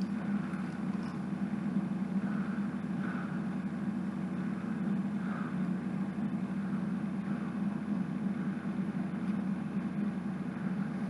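A steady low hum, even in level throughout, with a few faint brief sounds over it.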